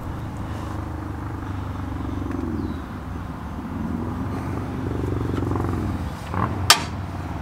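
A steady low motor hum, then one sharp hammer strike on metal near the end: the steering knuckle, sitting on a piece of pipe, is hammered to drive the old ball joint out.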